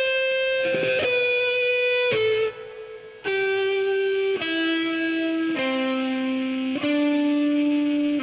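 Les Paul-style electric guitar playing a slow lead line of long held single notes, one at a time, stepping downward in pitch. A brief quieter gap comes between notes about two and a half seconds in.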